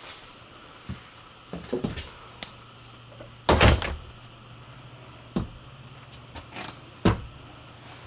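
A door being worked inside a small camper: several sharp knocks and clunks, the loudest a half-second clatter about three and a half seconds in. A steady low hum runs underneath.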